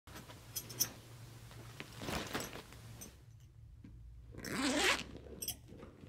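A handbag being handled: its zipper pulled in a few strokes, the longest and loudest near the end, with small clicks from its fittings in between.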